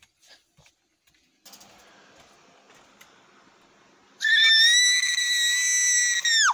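A loud, very high-pitched scream held for about two seconds, starting a little past halfway and dropping off sharply at the end: a person screeching in a voice for a puppet.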